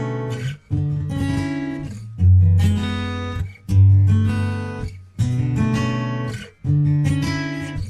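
Background music: an acoustic guitar strumming chords, a new chord about every second and a half, each left to ring and fade.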